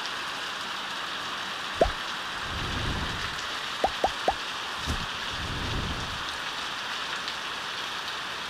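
Heavy rain pouring steadily on tiled roofs and the ground, an even hiss. A few sharp taps close by cut through it: one about two seconds in and three in quick succession around four seconds.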